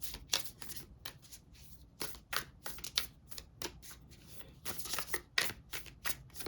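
A deck of tarot cards being shuffled by hand: an uneven run of quick, papery card flicks and slaps.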